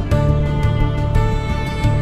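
Background music with held notes that change every second or so.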